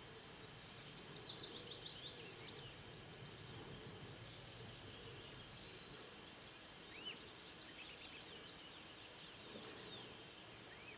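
Small songbirds singing faintly over a steady low outdoor hiss. There is a quick run of high chirps in the first couple of seconds, and more short phrases about seven seconds in and again near the end.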